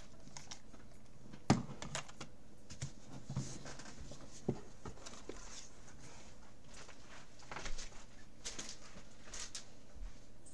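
Faint, scattered knocks, clicks and rustles of someone moving about and handling things in a small room, with a sharper knock about a second and a half in and a small cluster of knocks near the end.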